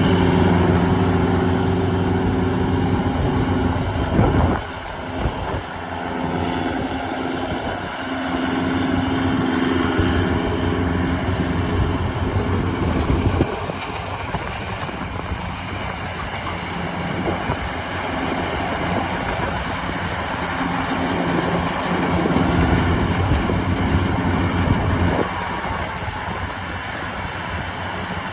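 Yanmar 82 rice combine harvester running while cutting rice: a steady engine hum over a constant rushing mechanical noise, the hum fading and returning several times.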